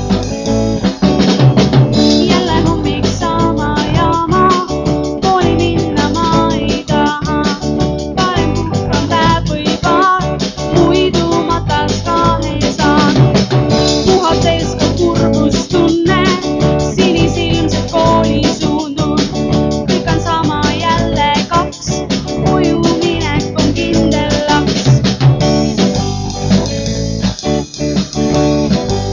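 A band playing a song: electric guitar over bass guitar and a drum kit keeping a steady beat.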